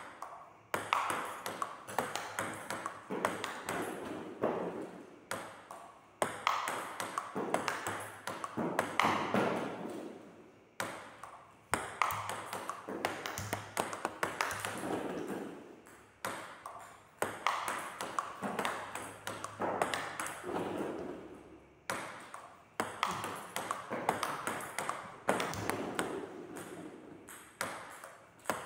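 Table tennis rallies: the celluloid-type ball clicks quickly back and forth off the table and the paddles, one of them faced with Yinhe Pluto short-pimple rubber. The rallies come in runs of several seconds, with short pauses between them.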